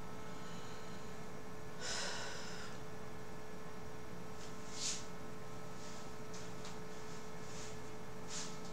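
Quiet room tone with a steady electrical hum, broken by three short soft hissing sounds about two, five and eight and a half seconds in.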